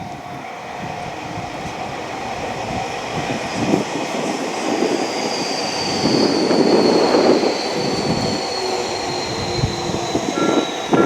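Tobu Railway electric train passing over a level crossing, its running noise building to a peak about seven seconds in. A high thin whine falls slowly in pitch through the second half.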